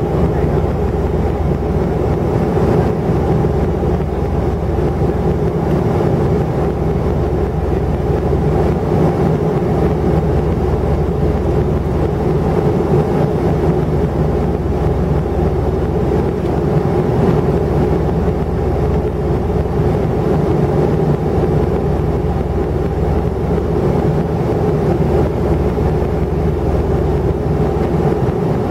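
Steady drone of an airliner's jet engines and airflow, heard inside the passenger cabin: a low rumble with a constant hum over it.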